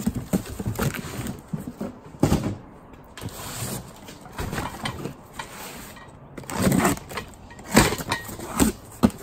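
Cardboard boxes being shifted and set down on a tabletop: irregular knocks and scrapes of cardboard, loudest a little before and after the seven-second mark.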